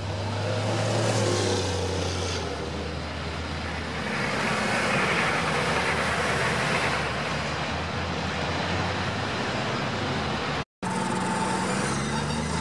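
Military convoy vehicles driving past close by: the low steady run of an eight-wheeled armoured vehicle's engine, then the engine and tyre hiss of a Humvee passing close about four to seven seconds in, swelling and fading. Near the end the sound cuts out completely for a moment.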